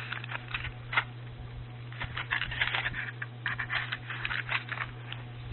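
Handling noise: a run of short rustles, scrapes and clicks, with a sharp click about a second in and a busier patch in the middle, over a steady low hum.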